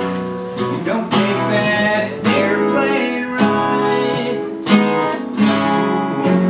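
Two acoustic guitars strumming chords together, a new strum about once a second with the chords ringing between strokes.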